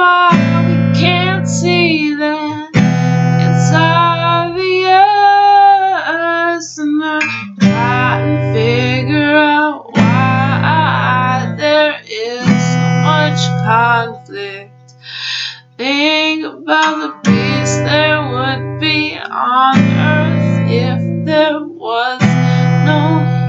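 A woman singing over a strummed acoustic guitar, the chords held and changing every couple of seconds; the guitar briefly drops out about two-thirds of the way through while the voice carries on.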